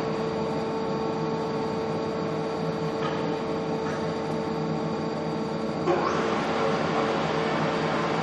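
Mazak Super QT 10 M CNC turning and milling centre running, with a steady machine hum and a constant tone. About six seconds in, a louder, noisier whirring sets in and keeps going.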